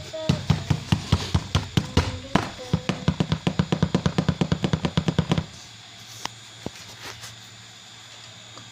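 Music with a fast, even drumbeat, about seven strokes a second, that cuts off suddenly about five and a half seconds in. A low hum and a few single clicks follow.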